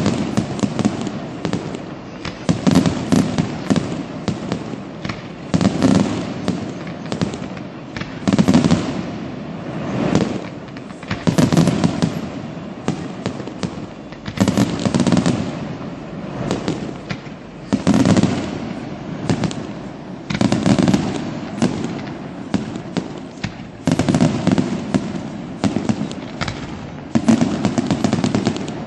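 Fireworks display firing repeated fan-shaped volleys of comets, each volley a dense cluster of sharp bangs and crackle with a low rumble under it. The volleys come about every three seconds, roughly ten times.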